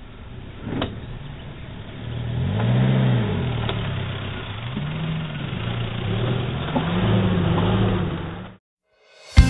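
Suzuki Jimny engine revving up and falling back three times, about two seconds apart, with a sharp knock about a second in; the sound cuts off suddenly shortly before the end.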